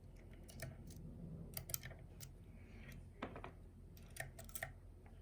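Faint, irregular small metallic clicks of a hook pick working the pins of a pin-tumbler challenge lock under tension.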